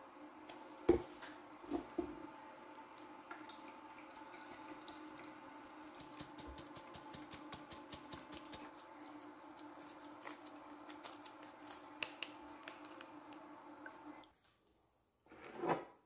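Thick blended carrot and grapefruit pulp being knocked out of a plastic blender jug into a metal mesh strainer, a few taps in the first two seconds. Juice then drips and squelches through the strainer into a saucepan in many small clicks, over a steady faint hum that cuts off near the end, followed by a short swell of noise.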